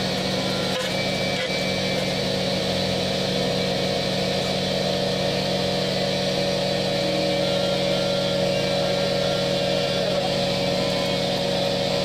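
Air compressor motor running steadily, a constant mechanical drone with a low hum and a higher steady tone.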